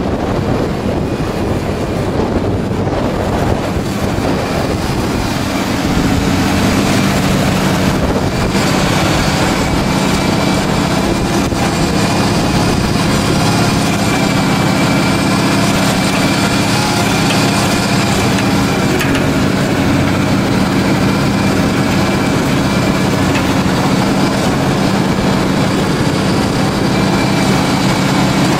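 Diesel engine of a Deutz Agrotron TTV 620 tractor running steadily under load while it pulls a disc harrow, mixed with the noise of the harrow working the soil. The engine hum gets louder about six seconds in and then holds steady.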